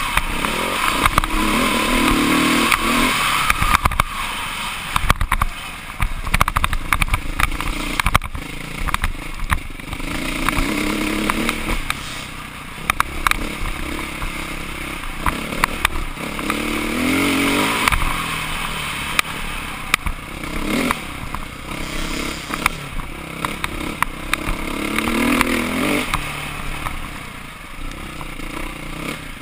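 Dirt bike engine heard on board. It revs up in repeated rising sweeps and drops back as the rider accelerates and shifts along the trail, with frequent knocks and rattles from the rough ground.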